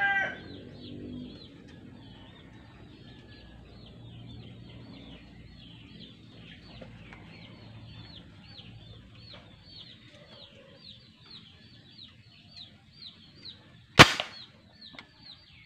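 A single sharp pop about 14 seconds in: a homemade PVC gas-powered toy sniper rifle firing a shot. Before it, high chirps repeat steadily in the background, and a rooster's crow ends at the very start.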